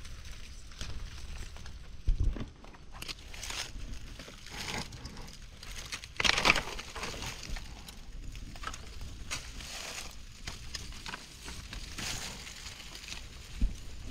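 Dry rustling and crackling of leaf litter and brush being moved through and handled. There is a louder rustle about six seconds in, and two dull bumps about two seconds in and near the end.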